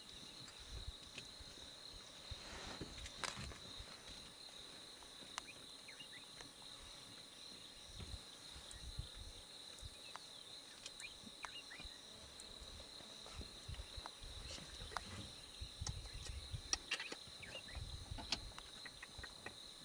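Faint, steady high-pitched trill of crickets chirping continuously, with scattered soft clicks and brief low rumbles.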